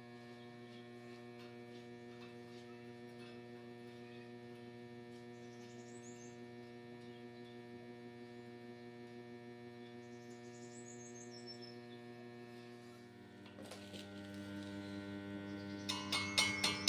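Steady electrical mains hum, a low buzz with several overtones. Near the end a rhythmic, percussive music track comes in.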